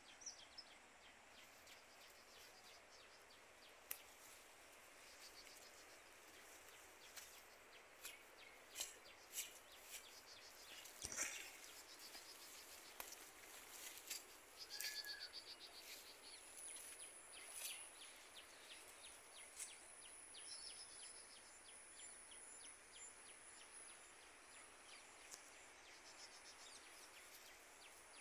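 Quiet rural ambience: faint, scattered bird chirps and light clicks over a soft background hiss, with a thin, steady high insect whine coming in about halfway.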